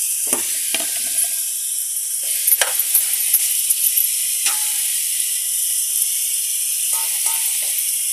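Minced chicken sizzling steadily in hot oil in a frying pan, with a few sharp clicks and scrapes of a spoon against the bowl and pan as the mince is scraped in and stirred.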